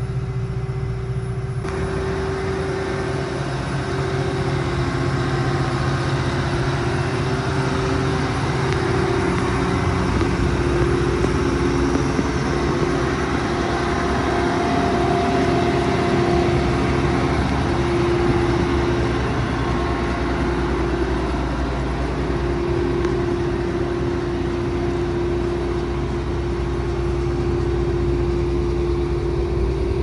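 John Deere S660 combine's diesel engine running steadily, a continuous drone with a humming tone.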